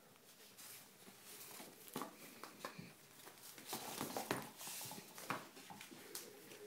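Bull terrier puppy playing with a red soft toy on a wooden floor: irregular scuffling, patters and light knocks from paws and toy, busiest around the middle.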